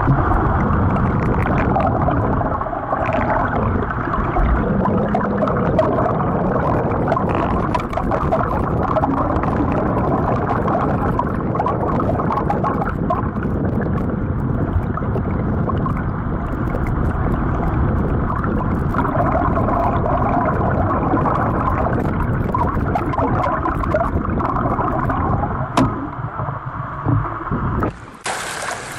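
Underwater sound in a swimming pool, heard through a submerged camera: a steady, muffled churning and gurgling of water from a swimmer's front-crawl strokes and kicks. Near the end the camera breaks the surface and the sound suddenly turns bright, with open-air splashing.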